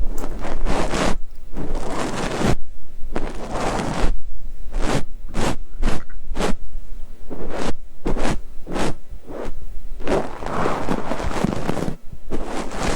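A fluffy ear pick brushing and scraping against a microphone's ear: a series of soft scratchy sweeps, with a run of short quick strokes, about two a second, in the middle.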